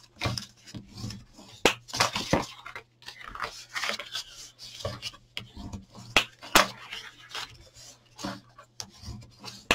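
Sheet of black card stock being handled by hand, crackling and rustling in short irregular clicks as it is folded along its score lines and pressed flat.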